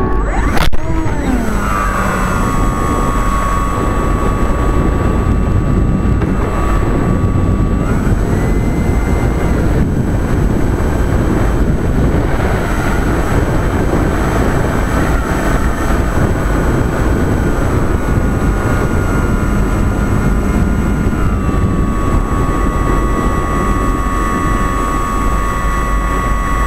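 Radio-controlled floatplane's motor running steadily, with heavy wind rush on the onboard camera's microphone. Under a second in there is one sharp, loud bang as the floats strike a snowmobile track during a touch-and-go, which breaks the floats' rear attachment points. The motor's pitch steps up about eight seconds in and drops back a little before the end.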